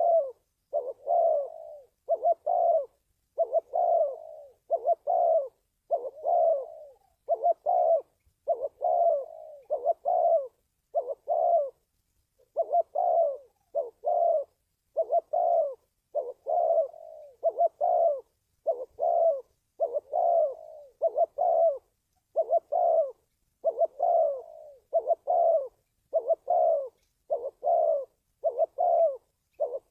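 Spotted dove cooing: a long run of short coos, about one a second, with a brief pause about twelve seconds in. This is the call played to train a decoy dove and lure wild doves into a trap.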